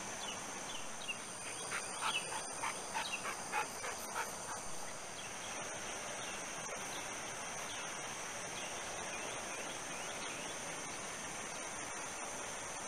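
A dog barking several short times in the first half, over a steady high drone of insects.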